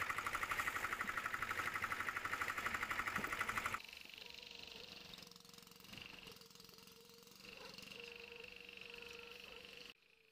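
A small engine running with a fast, even pulse. About four seconds in it cuts off abruptly, leaving a quieter steady hum with a faint high tone, which drops to near silence just before the end.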